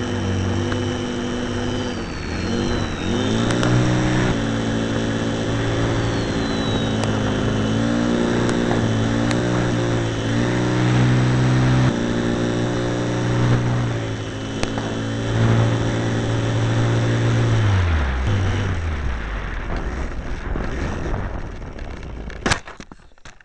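RC model airplane's motor and propeller running steadily, heard from a camera on board the plane, the pitch rising and dipping a little with the throttle. About eighteen seconds in it is throttled back and winds down with a falling pitch, and near the end there is one sharp knock as the plane touches down.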